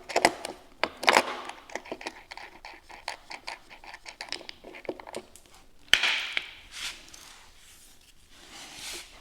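Handling clicks and knocks of 3D-printed plastic jump pads being fitted against an electric unicycle's side shell, with one sharp knock and a short rustle about six seconds in.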